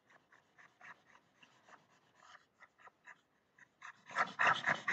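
Quick scratching strokes of a pen rubbing out a drawing on a graphics tablet, faint and scattered at first, then louder and denser near the end.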